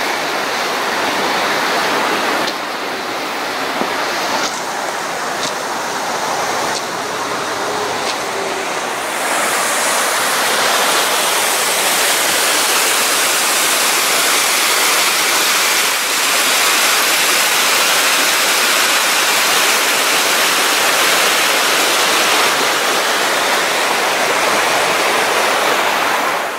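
McBay Creek rushing beneath a railway bridge, a steady sound of running water that grows louder about nine seconds in.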